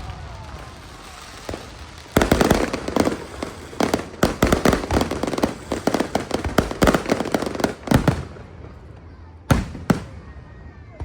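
Aerial fireworks going off. After a lull, a rapid barrage of sharp bangs and crackles starts about two seconds in and runs for about six seconds, then thins out to a couple of single bangs near the end.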